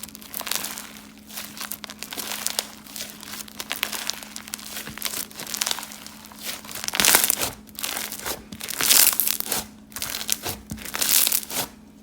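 Crunchy slime being squeezed and pressed by hand, a dense crackling and popping. There are louder bursts of crunching several times in the second half, over a steady low hum.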